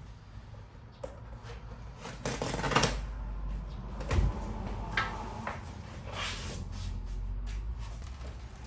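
Sheet of carbon-fibre vinyl wrap rustling as its backing liner is peeled away and handled, in several irregular noisy bursts, the loudest about two and a half seconds in. A dull knock comes about four seconds in.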